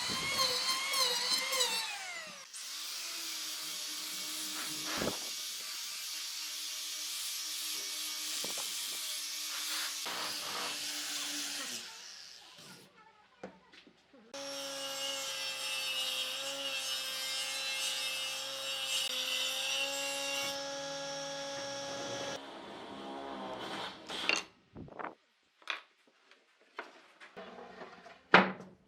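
Electric power tools working wood. A motor whine wavers, then winds down about two seconds in. Two long steady runs of a power tool on wood follow, with a gap between them, and a few sharp knocks come near the end.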